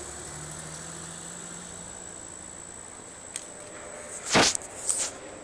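Steady low mechanical hum with a thin high steady tone, then two loud rustles of the camera being handled about four and five seconds in.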